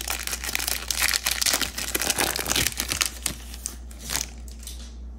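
Foil wrapper of a Topps baseball card pack crinkling as it is torn open and the cards are slid out. The crackling is dense for the first three seconds or so, then thins to a few single crinkles.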